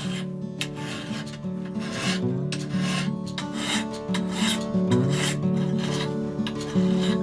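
Hand filing: repeated push strokes of a file or rasp on the knife, about two a second, over background acoustic guitar music.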